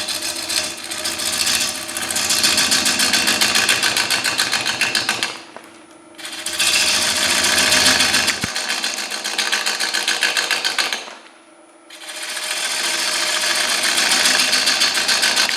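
A gouge cutting the outside of a wet hard maple bowl blank spinning on a cast-iron wood lathe, in three passes with short breaks about 6 and 11 seconds in. Each pass is a rapid, rhythmic chatter of an interrupted cut as the tool hits the uneven, still partly bark-covered surface of the blank.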